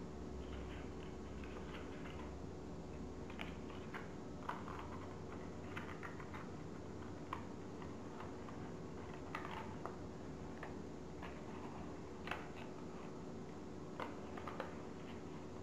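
Folded origami paper modules crackling and clicking in short, irregular bursts as they are handled and slotted together, over a faint steady hum.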